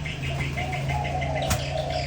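Spotted dove cooing: one drawn-out, wavering coo, with a sharp click about three-quarters of the way through.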